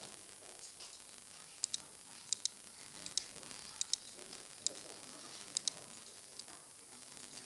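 Computer mouse button clicking: about six sharp clicks, most heard as a quick press-and-release pair, spaced roughly a second apart over a faint steady hiss.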